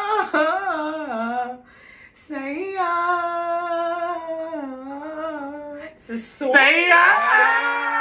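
A woman singing a slow melody without clear words, in long held notes with a wavering pitch. She breaks off briefly twice and ends on a louder held note that starts about six and a half seconds in.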